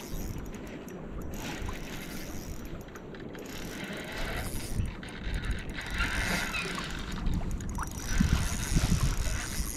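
A fishing reel being wound in, with low rumbling that gets louder about eight seconds in.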